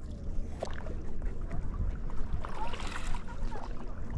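Water sloshing and lapping around a stand-up paddleboard as it is paddled across a calm lake, with a brief splashy rush about three seconds in, over a steady low rumble.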